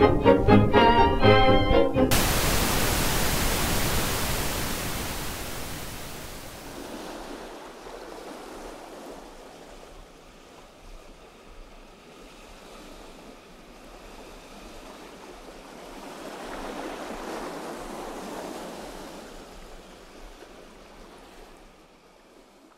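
Pulsing string music cuts off about two seconds in, giving way to a loud rushing noise that fades over several seconds, swells once more later on and then dies away.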